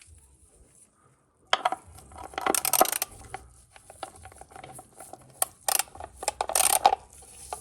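Metal tools and parts clinking and rattling as they are handled, in irregular clusters of sharp clicks that start about a second and a half in, loudest about halfway and again near the end.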